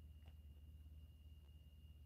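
Near silence: a faint steady low hum and a thin steady high-pitched tone, with one faint click a quarter of a second in.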